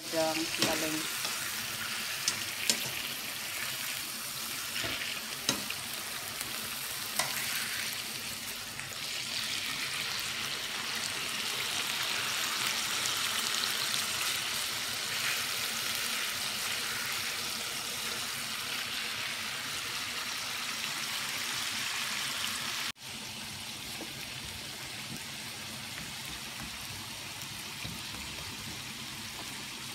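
Chicken fillets sizzling in hot oil in a grill pan, with a few sharp clicks of tongs against the pan in the first several seconds. About 23 seconds in it cuts abruptly to a slightly quieter, steady sizzle of sliced zucchini and carrots sautéing.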